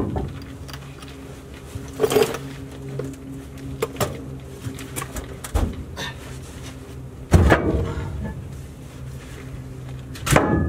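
Steel rear cross member of a B&W gooseneck hitch scraping and knocking against the pickup's frame as it is slid and guided into place by hand: about five separate clunks and scrapes, with louder ones in the second half and near the end. A steady low hum runs underneath.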